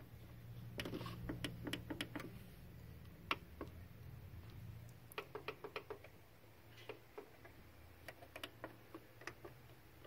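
Scattered sharp clicks and ticks from a Toshiba SD-V296 DVD/VCR combo as its front-panel buttons are pressed and its mechanism clicks, including a quick run of about five ticks in the middle. A faint low hum sits under the first couple of seconds.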